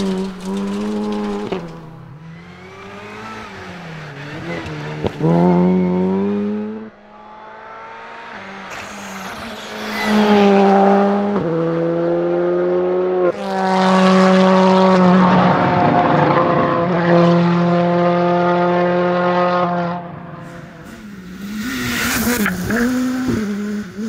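Rally car engines under hard acceleration, the note climbing and dropping sharply with gear changes and held high for several seconds in the middle, as several cars pass in turn.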